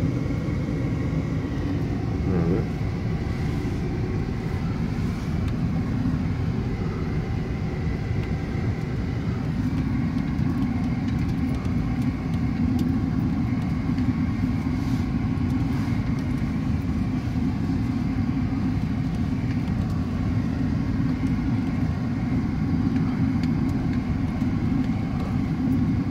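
Steady low rumble of a car's engine and road noise heard from inside the cabin as it drives slowly.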